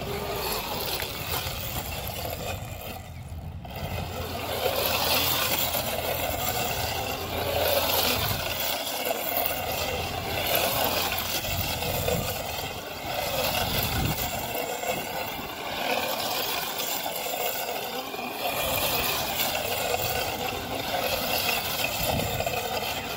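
Electric youth ATV's motor whining and its knobby tyres spinning and scrabbling on loose dirt as it turns donuts, the sound swelling and easing every few seconds as the throttle comes on and off.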